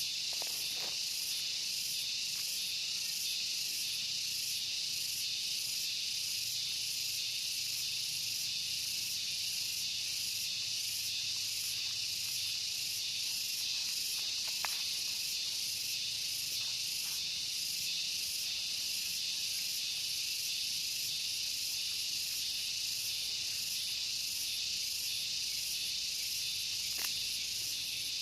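Steady, high-pitched chorus of insects with a fast, even pulsing, with a couple of faint clicks, one about halfway through and one near the end.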